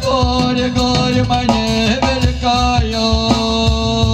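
Live band music: a man singing, with long held notes in the second half, over double bass and cajon.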